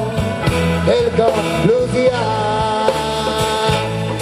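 Live acoustic blues song: strummed acoustic guitar under a melody of long held notes that slide up into pitch.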